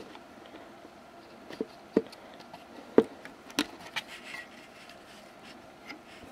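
Irregular sharp clicks and knocks with some rubbing and scraping: hands and tools working a loudspeaker loose from an old valve radio's metal chassis. The loudest knock comes about three seconds in.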